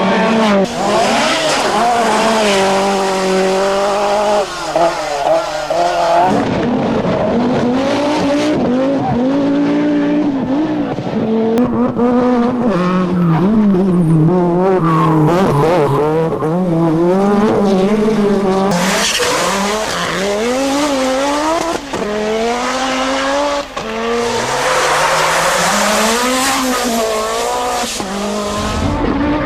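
Group B rally car engines revving hard at full throttle, their pitch repeatedly climbing and dropping sharply through gear changes and lifts. There are stretches of hissing noise from tyres on the stage.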